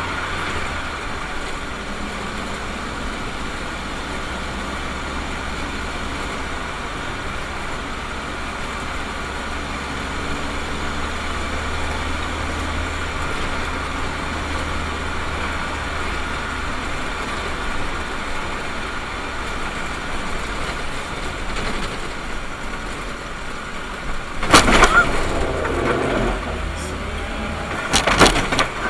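Steady engine and tyre noise inside a car driving on a wet road, picked up by a dashcam. Near the end come two loud, sudden sounds about three and a half seconds apart, the second as another car swerves close in front.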